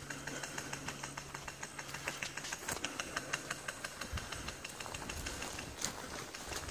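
Airsoft guns firing: a long run of rapid, sharp clicks, thinning out toward the end, with a low steady hum in the first couple of seconds.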